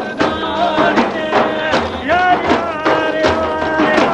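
Several large frame drums (daf) beaten together in a steady beat, about three strokes a second, under men's voices chanting a Kurdish dervish religious song. In the second half one long sung note is held over the drumming.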